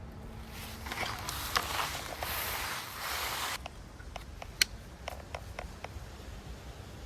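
Handling noise from an air rifle being readied to fire: a rustling stretch of about three seconds, then a run of light clicks with one sharper click a little after the middle.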